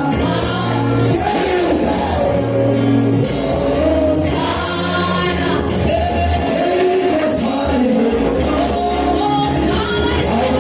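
Gospel worship music: a congregation or choir singing over a band with a steady bass line.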